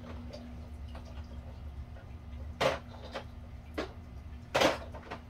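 Light bulbs and fixture parts being handled: two sharp knocks, a little under three seconds in and near the end, with a lighter click between, over a steady low hum.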